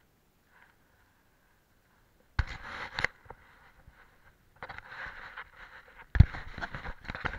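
Bursts of scraping and rustling with a few sharp knocks on an action camera or its housing as it is handled and tilted about; the loudest knock comes about six seconds in.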